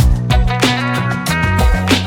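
Background music with a steady beat: a funk-style groove with bass and plucked guitar.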